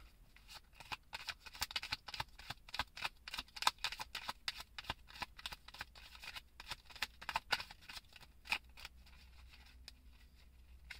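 A deck of cards being shuffled by hand: a quick, uneven run of soft card flicks and clicks that thins out near the end.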